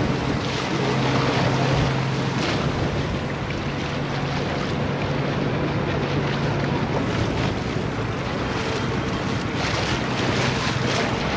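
Passenger ferry under way: a steady engine hum under water rushing and splashing along the hull, with wind buffeting the microphone.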